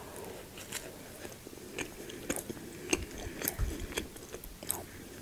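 A person chewing a mouthful of sausage bun close to the microphone: faint chewing with scattered short mouth clicks.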